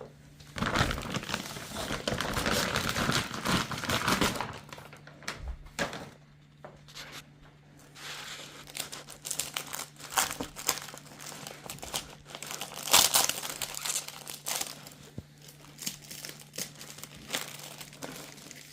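Plastic packaging on new rubber car floor mats crinkling and rustling as the mats are handled. It is densest for the first four seconds, then comes in sparser crackles and rustles, with a louder flurry about two-thirds of the way through.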